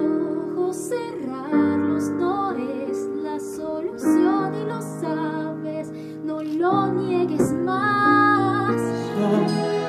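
A woman singing a solo musical-theatre ballad into a headset microphone over held instrumental chords.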